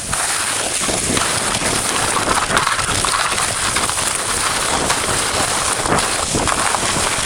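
Hammerhead sled sliding fast over packed snow: its runners make a steady, dense crackling hiss.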